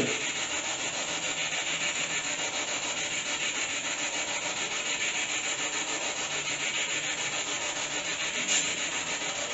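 Steady hissing static with an even pulse, a few beats a second.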